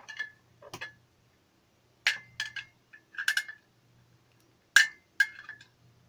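Sharp metallic clinks, about seven in irregular succession with a short ring, the loudest near the end, as a screwdriver works at freeing a rusted, stuck part from a ceiling fan motor's stator.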